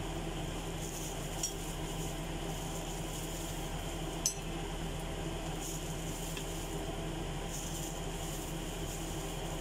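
A steady low hum, with a few light clinks of a ceramic bowl being handled while raw chicken pieces go in for marinating; the sharpest clink comes about four seconds in.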